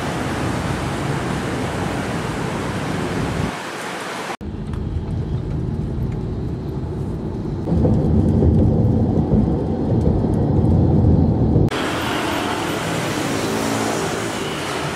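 Edited street ambience in three parts. First a steady hiss of a wet street with traffic, then from about four seconds a low road rumble heard inside a moving car's cabin that grows louder partway through, then from near the end the open noise of city street traffic again.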